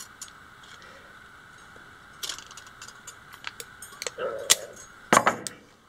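Scattered metal clicks and clinks of pliers gripping and working a steel tape-measure spring, with a sharper click about four and a half seconds in and a cluster of loud clicks just after five seconds.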